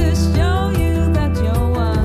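Background music with a melody over a steady bass line.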